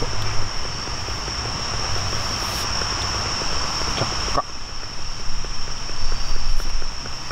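Steady high-pitched chirring of night insects over a low rumbling background, with the sound changing abruptly about four seconds in.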